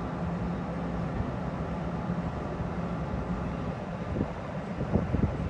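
NJ Transit bilevel commuter train on the track: a steady low rumble and hum, with a run of sharp wheel clicks on the rails starting about four seconds in.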